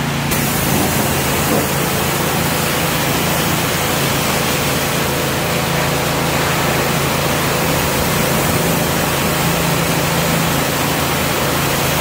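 AiPower high-pressure washer running: a steady motor and pump hum under the loud, even hiss of the water jet, which starts just after the beginning.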